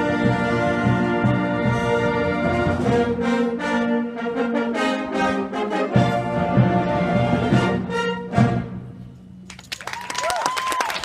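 Brass band playing the closing bars of a piece, with full held chords and several short accented hits. The music dies away about nine seconds in, and near the end the audience breaks into applause and cheers.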